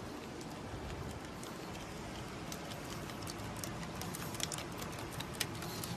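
A pug's claws clicking on wooden boardwalk planks as it trots closer: irregular light ticks that come more often from about halfway through, over a steady background hiss.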